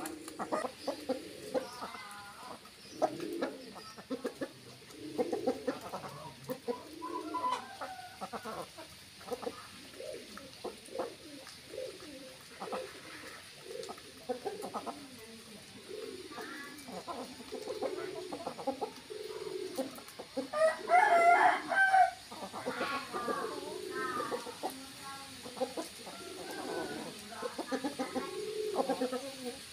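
Chickens clucking over and over in short, low calls, with one louder, higher call lasting over a second about two-thirds of the way through.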